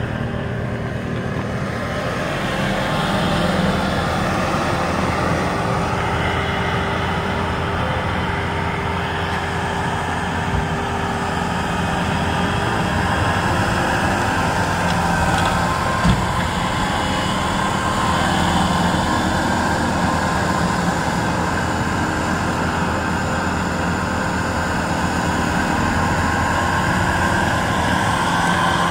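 Kubota L6060 tractor's diesel engine running steadily as the tractor drives and works a rear-mounted snowblower. There is a single sharp knock about halfway through.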